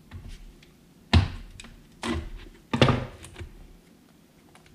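Plastic motor oil jug being opened and handled on a workbench: a few sharp plastic knocks and taps, the loudest about a second in and again near three seconds in.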